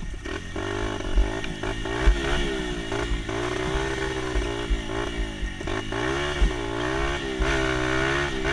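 Dirt bike engine being ridden, its pitch rising and falling again and again as the throttle is opened and closed, with low thuds and rumble underneath.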